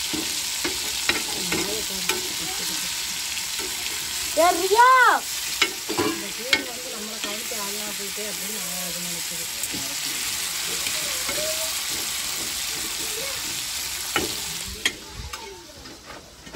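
Prawns sizzling as they fry in oil in a flat black pan, with a steel spatula scraping and stirring them in the pan. The sizzle drops away shortly before the end.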